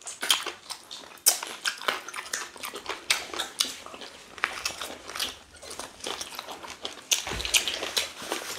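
Close-up wet chewing and lip-smacking of people eating potato fufu and ogbono soup by hand, a quick irregular run of short smacks and clicks.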